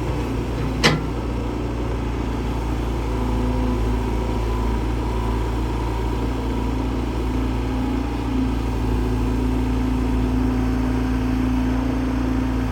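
Diesel engine of a heavy construction machine running steadily, with one sharp metallic clank about a second in.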